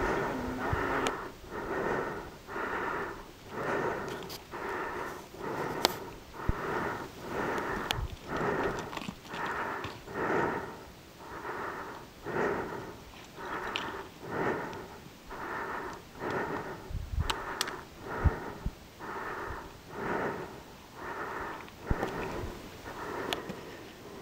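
A hiker breathing hard close to the microphone, a steady puffing about once a second, laboured from climbing a steep rock slope. A few sharp clicks are scattered through it.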